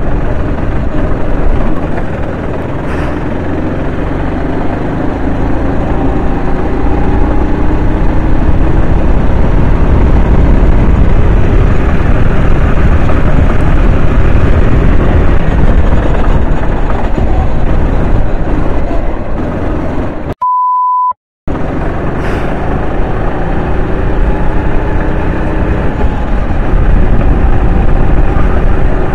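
Kart engine running hard on track, its pitch rising and falling with throttle through the corners. About twenty seconds in, the engine sound cuts out for about a second and is replaced by a single steady beep, an edited-in bleep.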